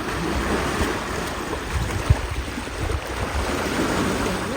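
River water rushing and splashing, with one dull thump about two seconds in.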